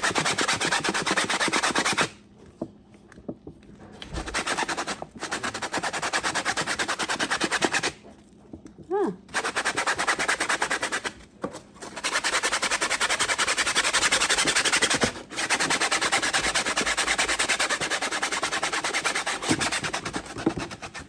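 A dishwasher's mesh filter being scrubbed by hand with rapid back-and-forth strokes. The scrubbing comes in bouts and stops for a second or two several times.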